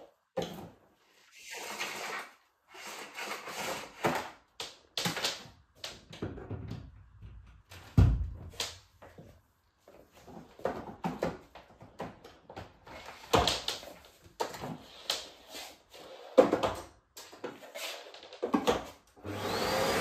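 Scattered plastic clicks, knocks and rustles as a bagless canister vacuum cleaner's hose and wand are handled and fitted together. About a second before the end, the Bosch BGS21X320's motor switches on with a rising whine into a steady rush of suction.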